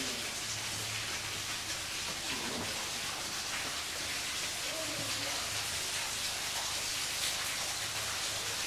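Steady, even hiss like falling rain, with faint indistinct voices underneath.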